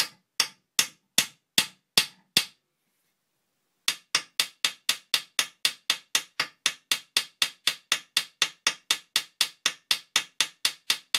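Ball-pein hammer peening a rivet over into the countersink of a steel locomotive frame plate. There are about seven sharp, ringing blows at roughly two and a half a second, a pause of about a second and a half, then a fast, even run of lighter blows about five a second.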